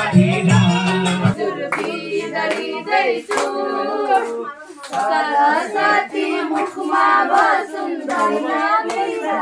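Dance music with a heavy bass beat cuts off about a second in. After that, a group of people sing together and clap their hands.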